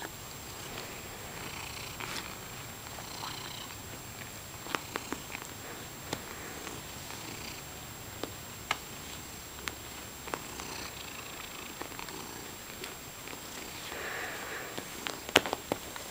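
Domestic cat purring steadily while being stroked, with scattered soft clicks and rustles of handling; a sharper click or tap about a second before the end.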